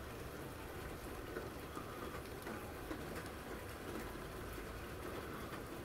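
Steady rain falling: an even hiss with scattered faint ticks of drops.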